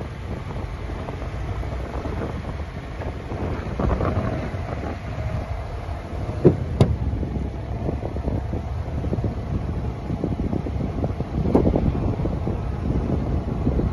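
Wind buffeting the microphone: a steady low rumble with uneven gusts. Two sharp knocks come about six and a half seconds in.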